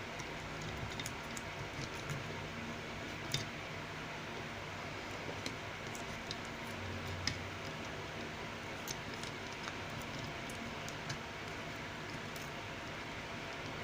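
Small scattered clicks and handling noises from wires and electrical tape being worked by hand, over a steady low hum of room tone.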